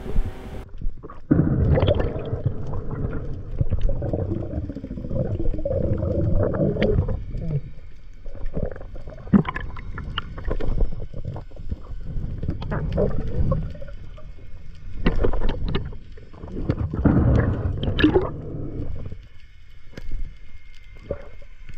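Underwater noise picked up through an action camera housing: low, uneven swishing and gurgling of water as the diver swims and handles the speared fish, with scattered sharp knocks.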